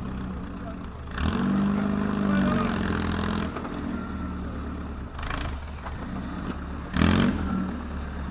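Motor vehicle engine running, louder and changing pitch as it revs from about one to three and a half seconds in. Two short loud rushes of noise, the louder one about seven seconds in.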